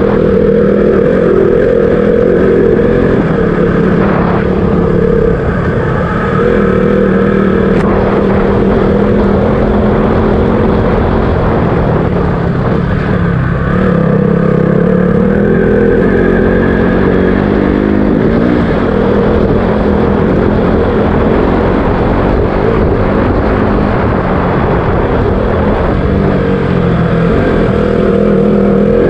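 Single-cylinder engine of a KTM RC 200 motorcycle running under way. Its note rises and falls several times as the throttle and gears change.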